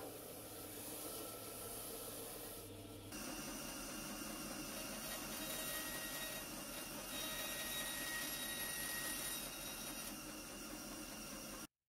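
Combination belt and disc sander running as a block of ash is sanded on the belt. About three seconds in, this gives way to a small bandsaw running and cutting a thin strip of laminated ash, with a faint thin whine in the middle of the cut. The sound cuts off abruptly just before the end.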